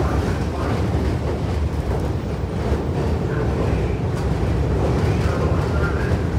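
New York City subway train running on the rails, a steady rumble of wheels and motors.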